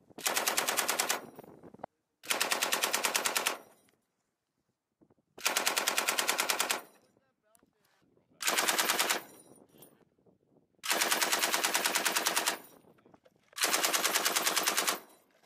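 Belt-fed machine gun firing six short bursts of rapid shots, each about a second long, with one- to two-second pauses between them.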